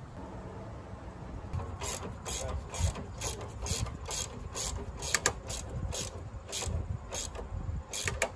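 Hand socket ratchet on a long extension clicking in quick repeated strokes, about two to three clicks a second, as a bolt is turned. The clicking starts about two seconds in.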